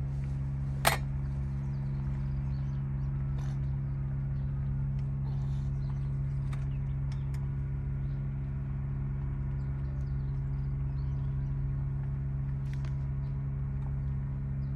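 A steady low mechanical hum, like an engine or generator running, with a single sharp click about a second in and a few faint ticks.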